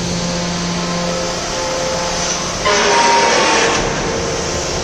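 Hydraulic walking floor trailer running under remote control, with a steady mechanical hum and faint steady tones. About two-thirds of the way in, a louder hissing, squealing burst lasts about a second as the floor's drive shifts.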